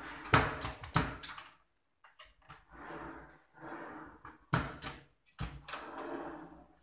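Aluminium kitchen-cabinet drawers being pulled open and pushed shut by hand. Rumbling slides alternate with several sharp knocks as each drawer reaches its stop.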